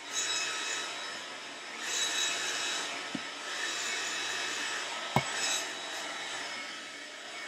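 Hair dryer blowing steadily, its noise swelling and fading several times as it is moved about. Two short sharp clicks about three and five seconds in, the second one louder.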